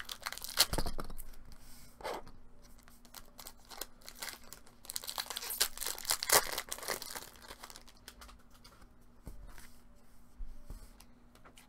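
2017 Topps Chrome Baseball trading-card pack wrappers being torn open by hand and crinkling, in several bursts, the longest in the middle.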